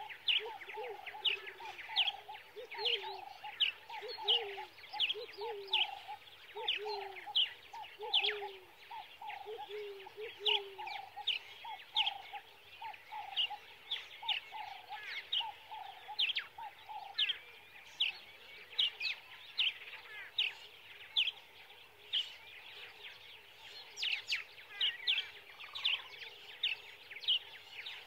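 A dense series of short, high chirps, each falling in pitch, comes about two a second throughout. A lower, pitched call repeats roughly every half second for the first ten seconds or so, then fades out by about 17 seconds in.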